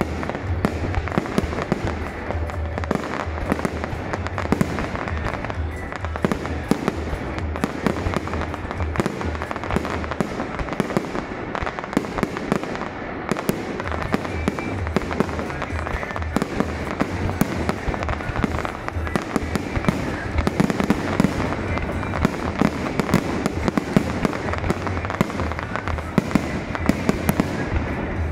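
Fireworks display: a continuous run of shell bursts and crackling, with music playing alongside.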